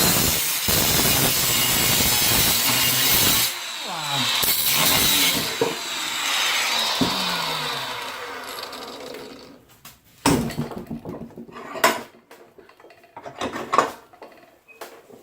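A power tool runs loud on the steel parts of a homemade belt grinder, then winds down with falling pitch and dies away about nine seconds in. Several sharp knocks of parts being handled follow.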